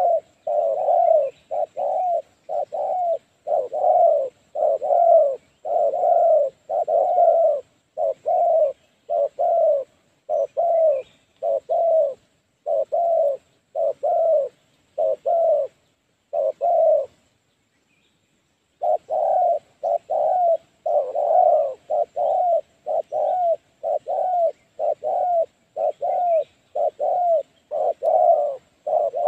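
Spotted doves cooing in a quick series of short coos, a little more than one a second, that stop for about two seconds a bit past halfway and then resume.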